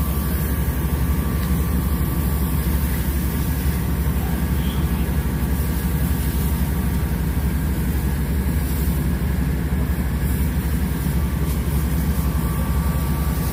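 Heavy fire-truck engine idling steadily: an even, low hum.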